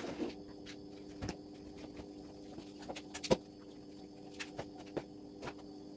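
Spin mop worked over a tiled kitchen floor: faint scattered taps and knocks, one sharper knock a little past halfway, over a steady low hum.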